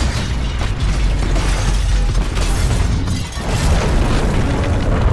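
Explosions booming into a continuous deep rumble with crackling debris, easing briefly about three seconds in before building again.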